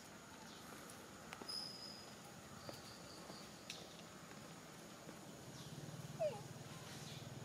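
Faint outdoor ambience: a few short high chirps and light clicks, then a brief squeak about six seconds in. A low steady hum sets in over the last couple of seconds.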